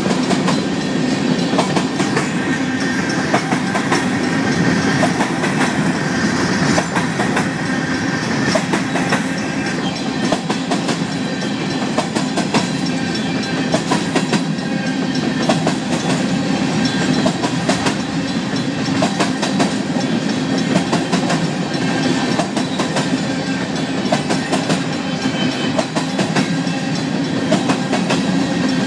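Covered hopper cars of a Union Pacific grain train rolling past close by: a steady rumble of steel wheels on rail, with frequent clicks and clacks.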